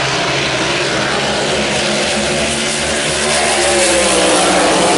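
Grand Prix hydroplane racing engines running flat out. The engine note climbs in pitch and grows louder about three seconds in as a boat passes close by.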